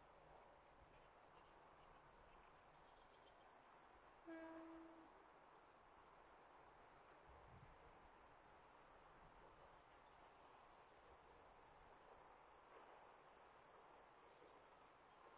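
Near silence outdoors: a faint, high-pitched tick repeats about four times a second throughout, and a brief steady low tone sounds once about four seconds in.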